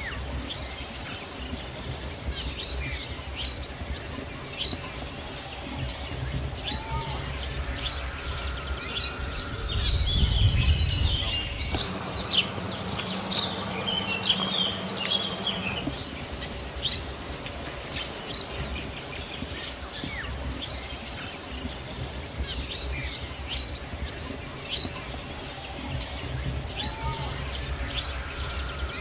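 Small birds chirping, with short high calls scattered throughout, over a steady low rumble.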